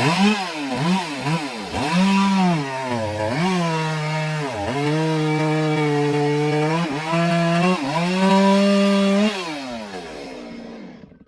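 Stihl chainsaw sawing into a large log. The engine runs at high speed, its pitch dipping and recovering several times as the chain bites into the wood, then holds steady through the cut. About nine seconds in it drops back toward idle.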